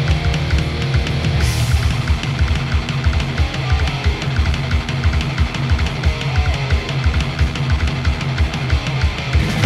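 Heavy metal music with no vocals: distorted electric guitars over fast, driving bass drum and kit.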